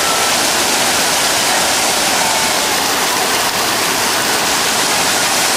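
Steady, loud rush of water pouring and splashing down from a water-park play structure, a falling curtain of water close by.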